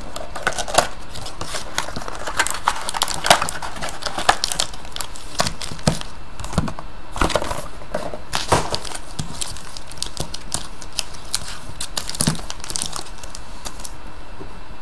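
Foil trading-card pack wrappers crinkling and rustling as hands handle them, in irregular crackles that thin out near the end.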